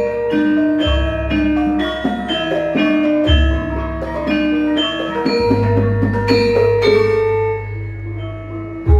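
Javanese gamelan ensemble playing a gending: bronze metallophones strike a steady melody of ringing notes. Deep low notes sound about a second in and three seconds in, and a long low note rings from about halfway.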